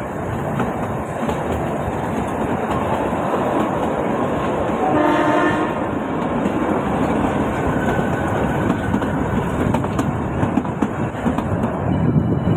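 Kalka–Shimla narrow-gauge toy train running on the track, a steady rumble and rattle of the carriages, with one short horn blast about five seconds in.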